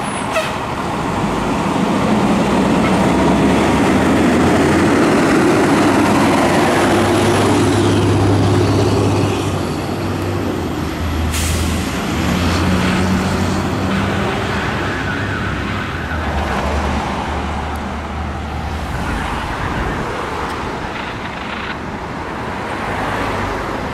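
2007 KME Predator fire engine's diesel engine pulling away under power, loudest over the first several seconds and then fading slowly as the truck drives off down the road.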